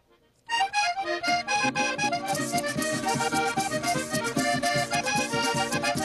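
Accordion playing a joropo oriental tune over a steady dance rhythm, starting about half a second in after a brief silence. A bright percussion layer joins about two seconds in.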